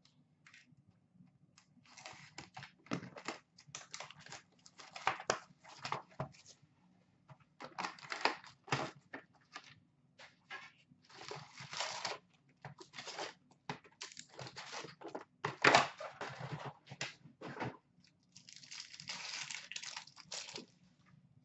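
Paper and cardboard rustling and crinkling in irregular bursts with sharp crackles, as a box of Upper Deck SP Authentic hockey cards is unpacked and its packs handled. A longer rustle near the end as a pack is worked open.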